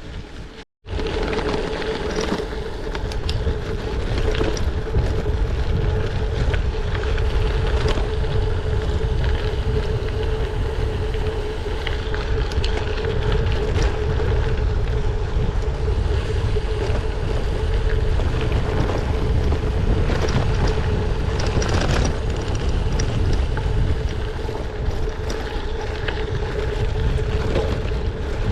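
Wind buffeting the microphone of a bike-mounted GoPro while riding a gravel bike, with tyre and road noise, a steady mid-pitched hum and scattered knocks from bumps. The sound drops out briefly just after the start.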